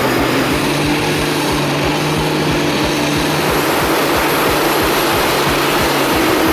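A heavy engine running steadily, with a regular low throb under a dense mechanical roar.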